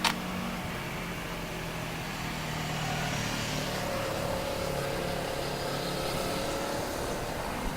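Steady outdoor background rumble with the hum of motor vehicles and a slowly bending engine tone passing through the middle. A single sharp crack right at the start, and a smaller one near the end.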